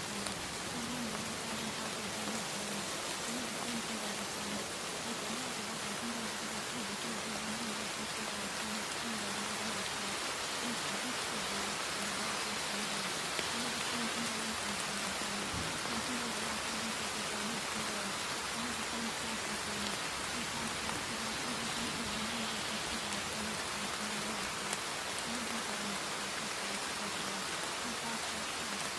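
Steady rain sound: an even hiss of falling rain, with a faint low wavering tone underneath that comes and goes.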